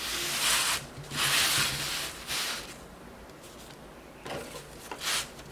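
The screwdriver set's storage bag being opened and handled: two long sliding, rustling swishes, then a couple of soft knocks near the end.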